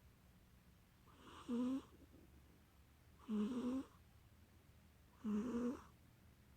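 A sleeping domestic cat snoring: three short snores about two seconds apart, each lasting well under a second.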